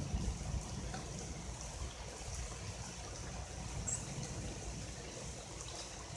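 Heavy thunderstorm rain falling steadily, heard from indoors through a window, with a low rumble underneath.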